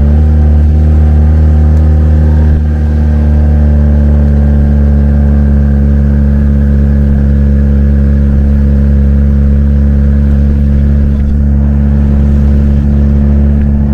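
Engine of a Merapi lava-tour jeep running at steady revs, a loud, even low drone.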